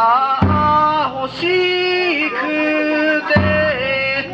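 Bon odori ondo singer, a man's voice, singing long, wavering held notes of the dance song, with low taiko drum strokes about half a second in and again after about three seconds.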